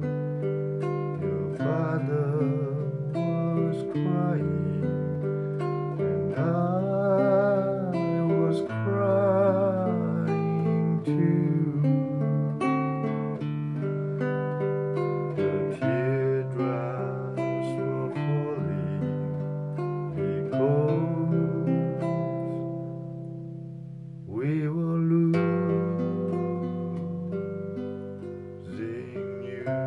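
Nylon-string classical guitar strummed and picked in a slow accompaniment, with a man singing along, his held notes wavering.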